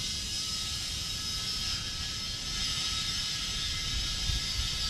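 Compressed air hissing steadily from an air chuck into a zero-turn mower's tubeless tire, starting abruptly, with a thin whistling tone in the hiss; the tire is taking air.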